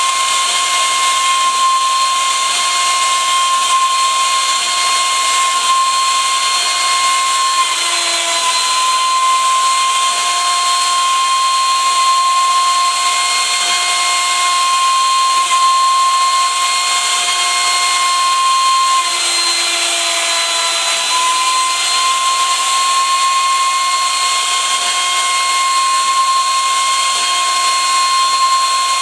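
CNC router's spindle motor whining steadily as a 1/4-inch end mill clears a shallow pocket in aspen on a rough area-clearance pass at 150 inches per minute. The pitch dips briefly twice, about eight seconds in and again around twenty seconds.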